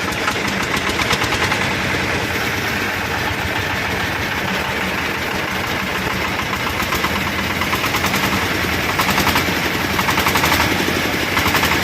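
Newly installed China IV diesel engine running with a fast, loud diesel clatter, growing a little louder in the last few seconds.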